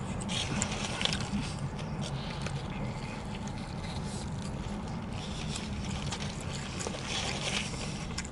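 Foil sandwich wrapper crinkling in scattered short crackles as it is handled, over a steady low rumble inside a car.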